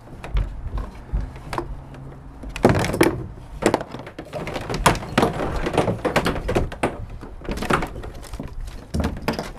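Irregular knocks, scrapes and rustles of hands working inside a plastic kayak's hull hatch and handling a transducer cable, sparse at first and coming thick and fast from about two and a half seconds in.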